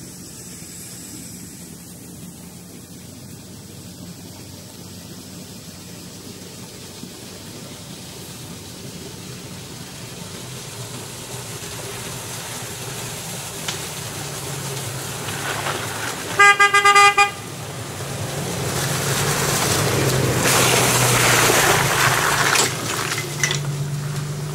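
An off-road vehicle's engine running and growing louder as it comes closer, with a single car-horn honk lasting about a second around two-thirds of the way through. After the honk, loud rustling and crunching as the vehicle moves along the track.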